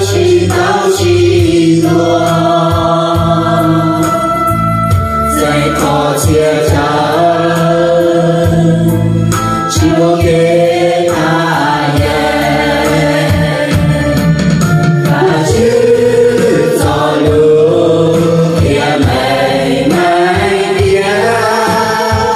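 A song: a voice sings long held notes over instrumental accompaniment with a steady low beat.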